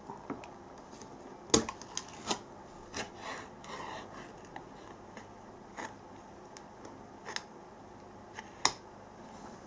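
Easy-open pull-tab lid of a can of mackerel being pulled open by hand: sharp metal clicks with scraping between them as the lid peels back around the rim. The loudest click is about one and a half seconds in, with another near the end.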